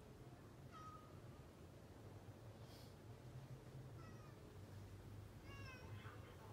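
Domestic cat meowing faintly a few times in short calls, the clearest one near the end.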